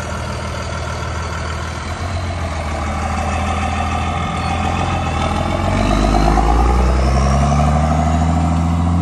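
Ford medium-duty tow truck's engine running as the truck drives past. From about six seconds in it grows louder and its pitch rises as the truck accelerates away.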